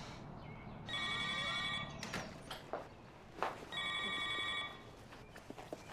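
Cordless home telephone ringing electronically: two warbling rings, each about a second long, the first about a second in and the second near four seconds in.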